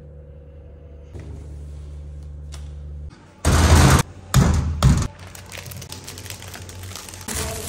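A steady low hum, then a cured ham being handled and bagged: two loud bursts of rustling and knocking about three and four seconds in, then the crinkling of a foil-lined bag as the ham is slid into it.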